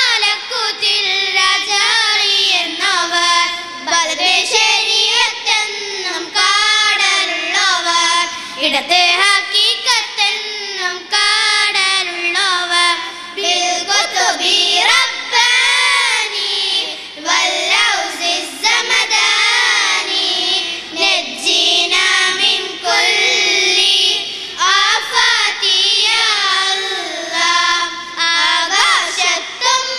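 A small group of girls singing a melody together into microphones, the voices amplified.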